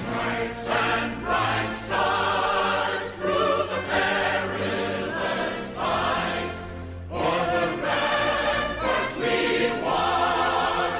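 Choral music: a choir singing in long phrases over held low notes.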